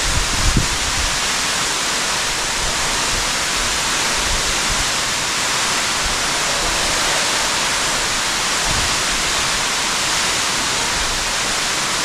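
A 280-foot underground waterfall pouring down a cave shaft: a steady, even rush of falling water and spray. A few low thumps on the microphone in the first second.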